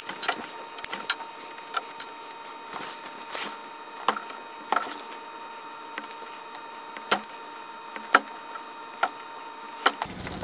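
Hand wire stripper at work on a wire: irregular sharp clicks and snips of its jaws, mixed with small knocks of the tool and cable ends being handled.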